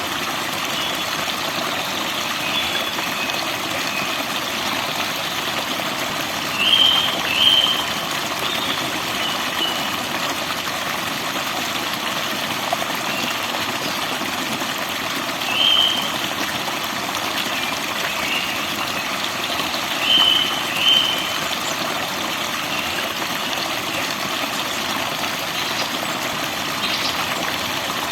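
Steady rush of running water from a forest waterfall, with small birds calling over it: short high chirps, the loudest coming as a pair about 7 s in, one about 16 s in and another pair about 20 s in.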